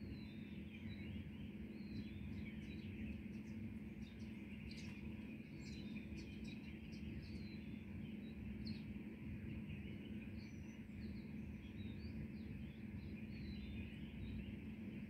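Birds chirping, many short high calls, busiest in the first half, over a steady low hum.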